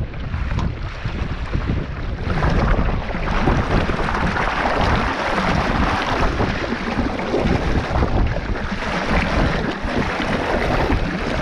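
Water rushing and splashing along the hull of a Supernova sailing dinghy under way, with wind rumbling on the microphone. The rush grows louder about two seconds in as the boat heels.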